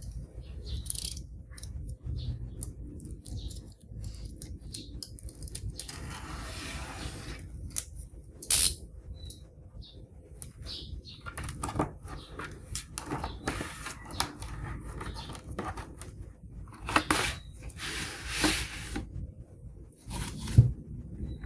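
Rustling and crinkling of plastic wrap and cardboard as a shrink-wrapped vinyl LP jacket is handled and its printed inner sleeve pulled out, with scattered light clicks and a few louder bursts of rustling.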